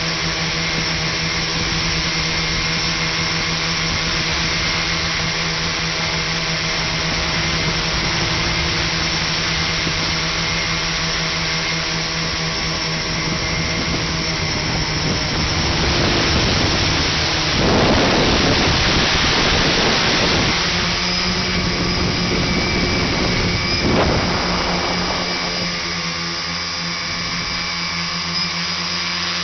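Tricopter's electric motors and propellers droning steadily, with wind rushing over the onboard microphone. The rush swells for a few seconds past the middle, and the motor pitch shifts near the end.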